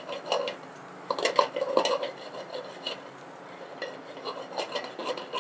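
Wooden spoon stirring diced vegetables in a stainless steel pot, knocking and scraping against the metal in irregular clusters, busiest between about one and two seconds in and again near the end.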